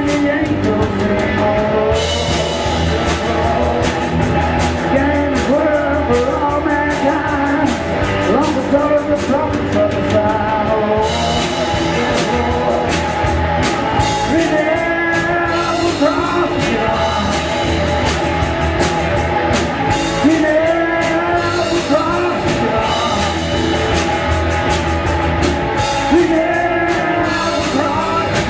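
Rock music with a singer over guitar and drums, playing steadily.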